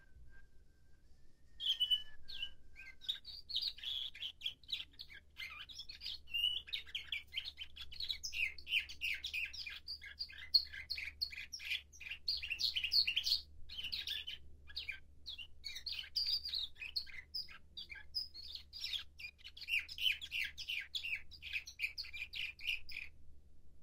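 Young male nightingale-song canary (bülbül ötümlü kanarya) singing one long, unbroken song of rapid trills and chirps. It starts about two seconds in and stops just before the end. The song comes in its tertip period, when the order of its song phrases is still being trained.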